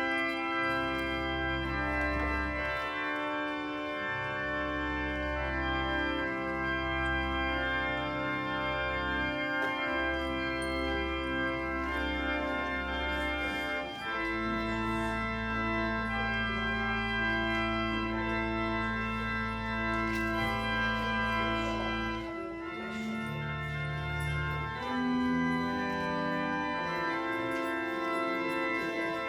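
Organ playing slow sustained chords, with a long held bass note from about 14 to 22 seconds in.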